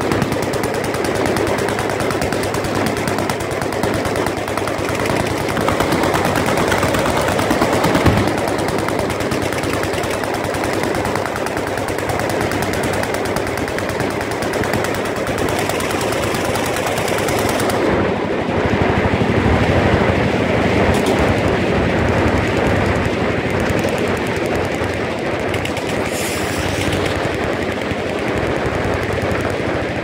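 Many machine guns firing downrange at once, a continuous mass of overlapping automatic fire with no break, and one louder bang about eight seconds in.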